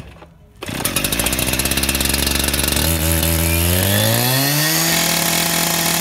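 Stihl concrete saw's two-stroke engine catching on the starter cord about half a second in, with the choke off and the throttle on the start setting, and running fast and rough. Its revs climb between about three and five seconds in, then hold steady.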